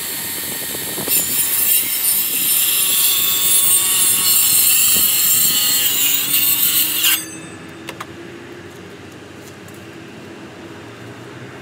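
Handheld circular saw running and cutting through lumber boards, its high whine getting louder about a second in as the blade bites and stopping suddenly about seven seconds in. A few light knocks follow.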